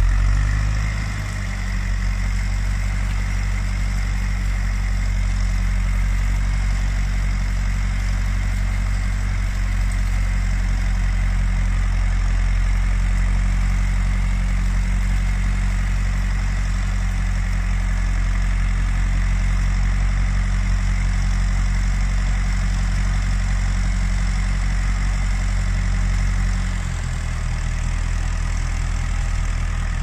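1954 Ferguson TEF20's four-cylinder diesel engine running steadily under load, pulling a single-furrow plough through the soil. The engine note dips slightly near the end.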